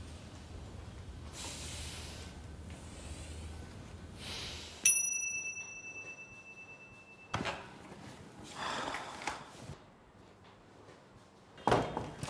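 A single bright bell-like ding about five seconds in, ringing on as a few clear high tones for a second or two. Softer knocks and rustles follow, with a sharp clunk just before the end.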